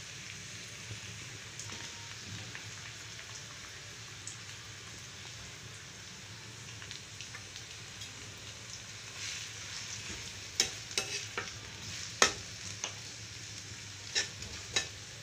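Sliced onions sizzling in hot oil in a kadai with a steady hiss. In the last few seconds a utensil stirring them clicks and scrapes sharply against the pan.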